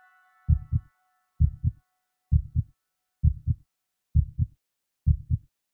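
Low double thumps in a steady heartbeat-like rhythm, six pairs a little under a second apart, stopping shortly before the end. A held musical chord fades out beneath them in the first moments.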